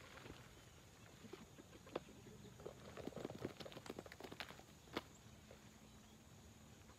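Faint footsteps on grass and rustling, with a busy stretch of small knocks and rustles from about three to four and a half seconds in as pear scraps are tossed onto the ground. Two sharp clicks stand out, about two and five seconds in.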